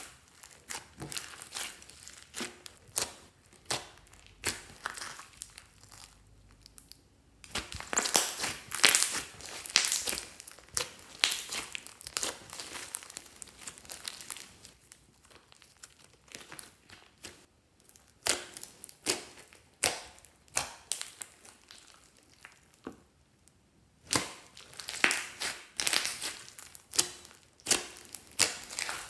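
Hands kneading, stretching and squeezing slime studded with small beads: wet squishing with dense sharp clicks and crackles, coming in bursts with quieter pauses between.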